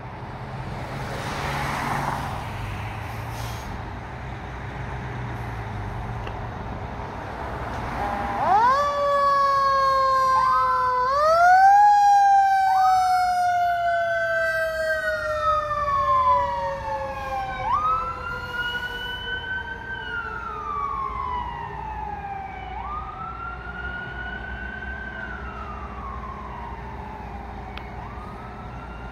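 Fire engine and command pickup leaving on a call: diesel engine running, then about eight seconds in several sirens start, with wails rising and falling every few seconds and one lower tone winding slowly down, loudest at first and fading as the vehicles drive away.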